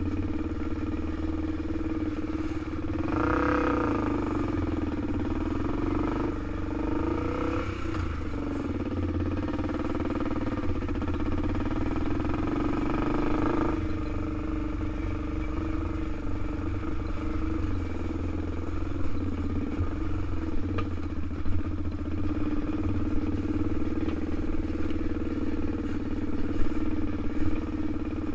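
Honda TRX400EX ATV's single-cylinder four-stroke engine running under way, its revs rising and falling a few seconds in and then holding steadier. A few sharp knocks come near the end.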